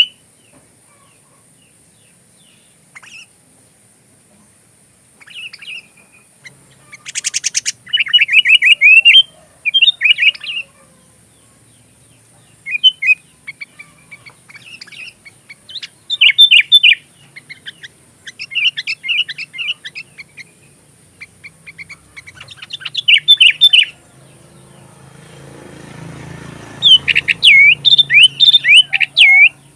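Sooty-headed bulbul (kutilang) singing: phrases of quick, bright chirps, each phrase a second or two long, coming again and again with short pauses between them.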